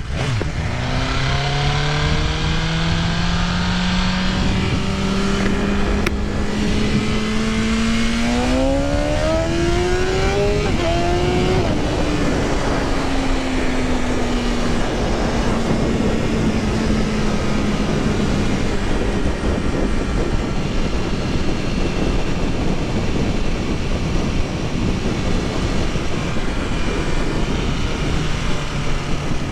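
2021 BMW S1000RR inline-four sport bike engine under way, on a Stage 2 ECU flash with the stock exhaust. Its pitch creeps up, climbs fast about eight seconds in, drops back a step near eleven seconds, then sinks slowly as the bike slows. A steady rush of wind and road noise runs under it.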